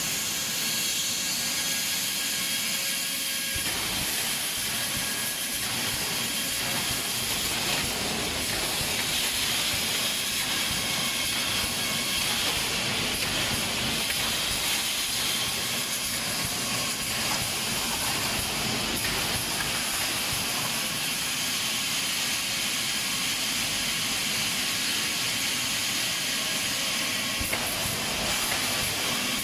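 Steady hissing machine noise from an automatic wire mesh welding machine at work.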